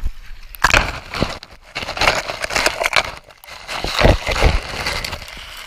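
Water splashing and churning right at the microphone, as the camera is dunked in muddy river water: loud, irregular surges with a brief lull about three and a half seconds in.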